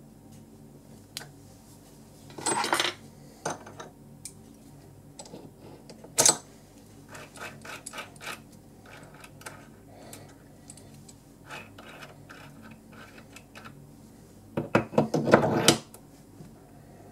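Steel parts clinking and scraping as a spanner works the nut on the lathe's tool-post mounting shaft and the steel quick-change tool post block is set down over it. There are scattered clinks and light ticks, a sharp clink about six seconds in, and the loudest metal-on-metal rattle near the end.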